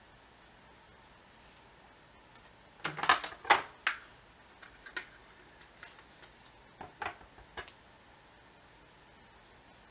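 A makeup brush tapping and knocking against a powder palette: a quick cluster of sharp taps about three seconds in, then a few softer ticks over the next few seconds.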